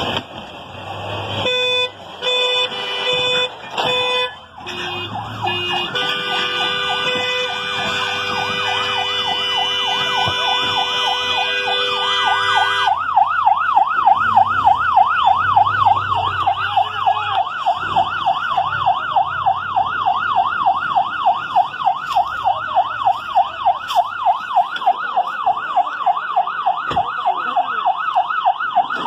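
Emergency vehicle siren unit: several short horn blasts, then a long steady horn note, then, about halfway through, a fast up-and-down yelp siren of about two sweeps a second.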